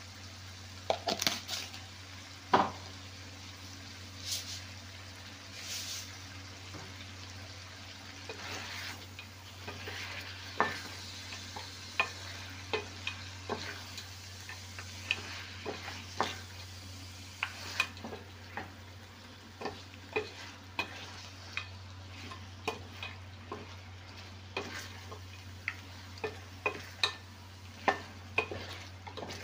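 A wooden spoon stirring whole prawns and mussels in their shells through a sauce in a stainless steel pan: irregular clacks and knocks as shells hit each other and the pan, over a low sizzle from the pan. A low steady hum runs underneath.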